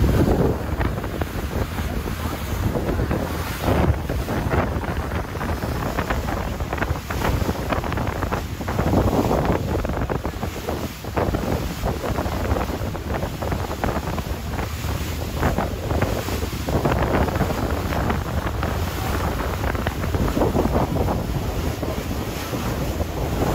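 Wind buffeting the microphone and water rushing and splashing past the hull of a motorboat running at speed, over a low, steady engine drone.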